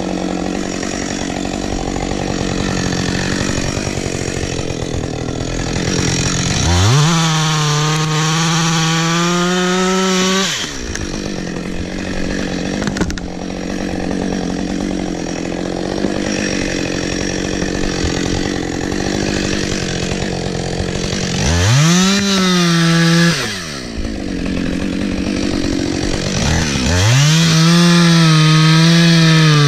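Two-stroke chainsaw running at idle and revved up to full throttle three times. The first rev, about seven seconds in, is held for some four seconds. A short one comes about twenty-one seconds in, and a longer one near the end. Each rise is a sweep up to a high, steady whine.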